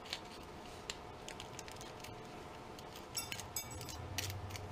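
Faint scattered clicks and scratches of a thin steel pick prying copper winding wire out of a small stepper motor, with a quick cluster of scraping clicks about three seconds in.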